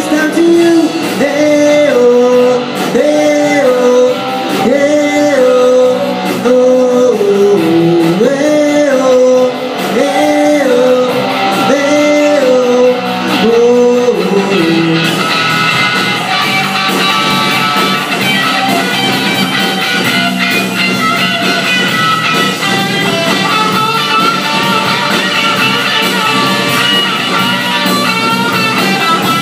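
Live rock band playing with electric guitars and a drum kit. A short melodic phrase repeats about every two seconds for the first half, then the band carries on in a fuller, steadier strum.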